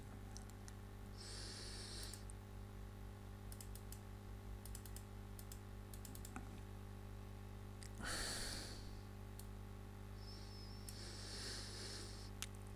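Faint computer mouse clicks, scattered and irregular, over a steady low electrical hum. A few short soft hisses come about a second in and again after about eight seconds.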